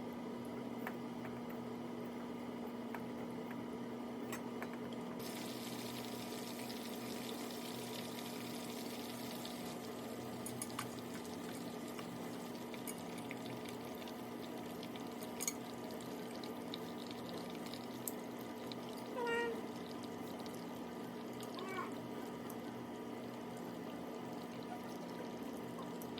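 Steady electrical hum throughout, with a few seconds of pouring or running water about five seconds in and scattered light clicks. Two short, high animal calls come later, one after the other.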